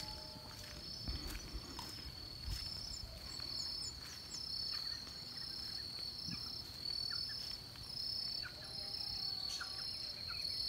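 Steady, high-pitched chorus of insects, one continuous trill with a second trill pulsing on and off above it, and a few faint bird chirps scattered through. A light low rumble of wind on the microphone runs underneath.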